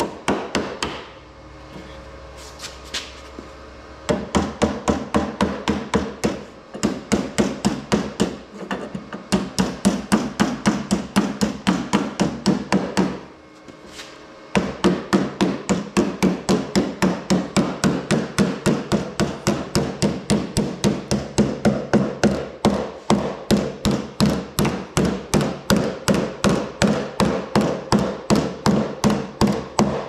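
Body hammer tapping the sheet-steel lip of a second-generation Camaro door over onto a patch panel, folding the hem down with light, rapid taps at about three a second. Each tap leaves a short metallic ring, and the tapping pauses briefly near the start and again about halfway through.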